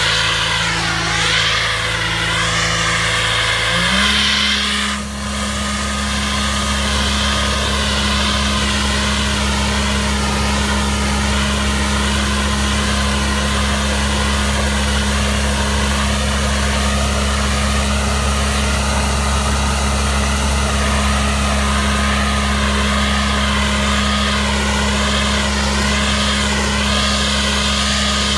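Spray-injection road patcher's engine and blower running steadily while the hose nozzle blasts emulsion-coated stone chips onto cracked asphalt. The engine's pitch steps up about four seconds in, and a wavering whine and an air hiss sit over it.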